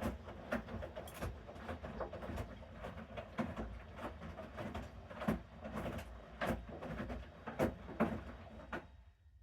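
Bosch Series 6 washing machine in its main wash: the drum turns with a low motor hum while the wet laundry tumbles with irregular soft thuds and splashes. The drum stops near the end, the pause between turns.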